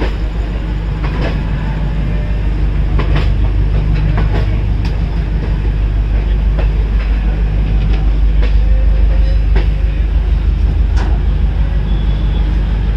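Passenger express train running along the track: a steady loud low rumble with irregular sharp clicks and clanks from the wheels over the rail.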